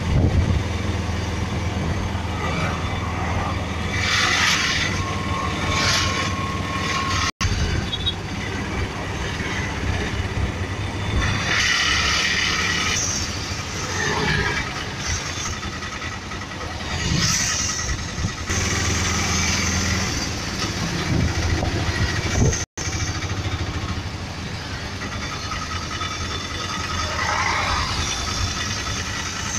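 Auto-rickshaw (tuk-tuk) engine running as it drives along, heard from inside the open cab, with a steady low drone and road noise. The noise swells now and then as other vehicles pass close by.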